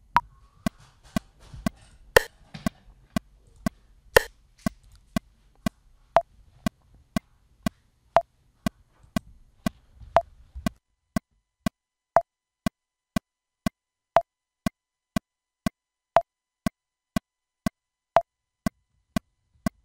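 Pro Tools Click plug-in metronome playing at 120 BPM: two short pitched clicks a second, with a brighter accented click on the first beat of every four.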